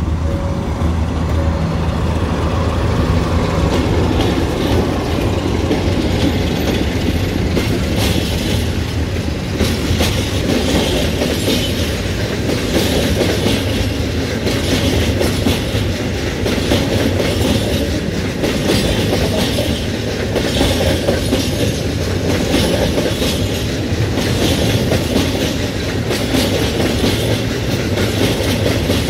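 A diesel-hauled freight train passing close by. The locomotive's engine is heard near the start. Then a long line of open freight wagons rolls past, their wheels clacking over the rail joints in a regular rhythm over a steady rumble.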